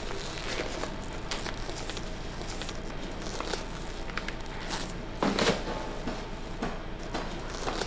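Plastic crinkling and rustling with scattered small clicks as vacuum-packed meat cuts are handled and packed into a plastic-lined box. A louder rustle comes about five seconds in, over a steady low hum.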